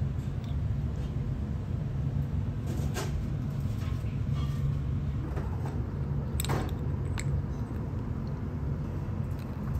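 A steady low background hum, with a few light clinks of a metal spoon against a small ceramic dish: about three seconds in, then twice more near six and a half and seven seconds.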